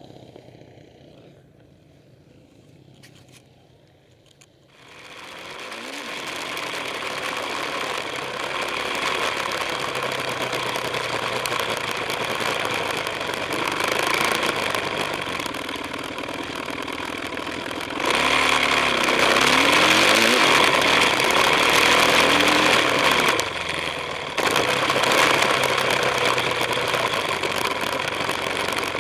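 Dirt bike engine heard from a handlebar-mounted camera while the bike is ridden. It is faint for the first few seconds, then loud from about five seconds in, with the engine note rising and falling as the throttle is opened and closed; it gets louder again about eighteen seconds in.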